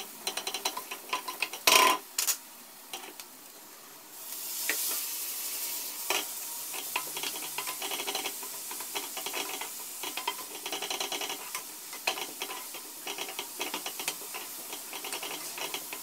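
Wooden spoon stirring and scraping chopped onion around a nonstick frying pan in a rapid patter, with the onion sizzling in hot oil as it softens; the hiss comes up about four seconds in. A sharp knock a little under two seconds in is the loudest sound.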